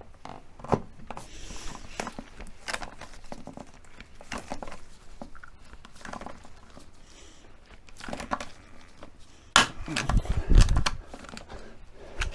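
Handling noises of fitting a steel doubler plate inside an MGB rubber bumper: scattered light clicks, scrapes and taps of tool and metal, with a louder run of knocks and thuds about ten seconds in.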